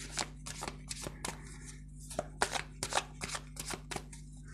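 Tarot cards being shuffled by hand: a quick, irregular run of soft slaps and clicks, about three a second.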